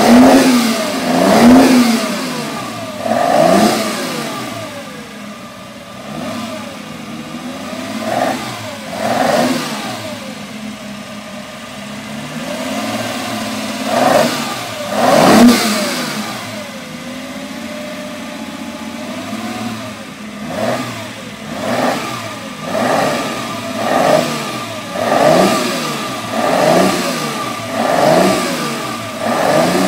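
Racing car engine revving hard, its pitch climbing and falling again and again. Near the end come quick rev blips about once a second.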